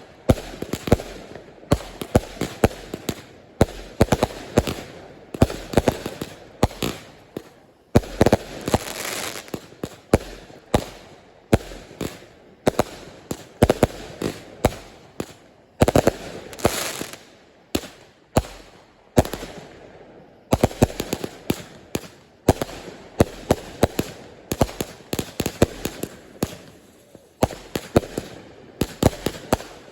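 Aerial fireworks going off in quick succession: many sharp bangs, often several a second, with a few short lulls. Twice, about eight and sixteen seconds in, a hissing stretch runs under the bangs.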